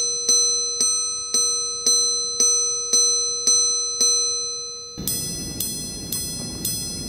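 Audemars Piguet Supersonnerie minute repeater chiming the time: a string of about nine loud, ringing gong strikes, about two a second, each sustaining into the next. About five seconds in, a traditional minute repeater takes over at the same pace, quieter and with a thinner, brighter ring full of high overtones.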